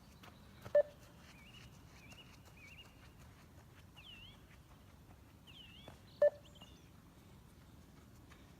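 Two short electronic timing beeps of a 20 m beep test, about five and a half seconds apart, each marking the end of one 20 m shuttle at level 10. Faint high squeaks come in between.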